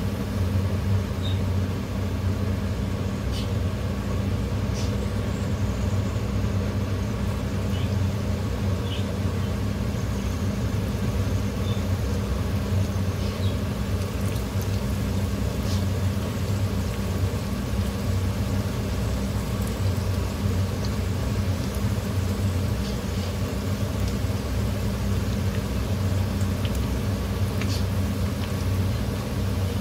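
Pakora batter deep-frying in hot oil in a pan, a steady sizzle with a few small pops, under a steady low mechanical hum.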